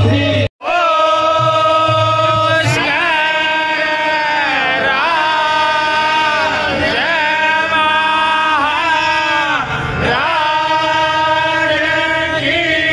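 Devotional Hindu bhajan chanting, sung voices over loudspeakers holding long notes that slide up and down. The sound drops out completely for a moment about half a second in.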